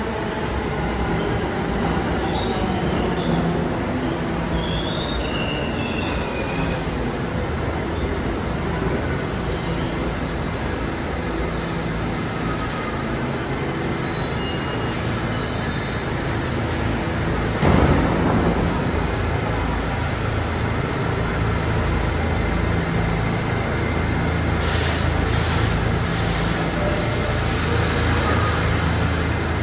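New York City subway train in the station, its traction motors and equipment humming steadily, with a few short high wheel squeals in the first several seconds and a brief burst of noise about 18 seconds in.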